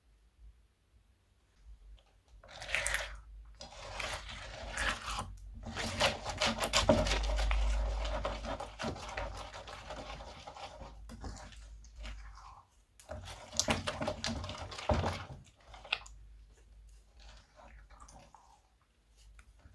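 Crunchy slime being squeezed and pressed by hand, a dense crackling and popping. It starts about two seconds in, comes in a couple of louder bouts, and thins out near the end.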